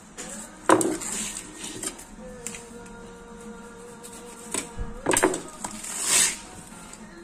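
Kitchen knife cutting and scraping at a whole pomfret on a plastic cutting board, with several sharp knocks of the blade against the board, the loudest about a second in and again around five to six seconds in.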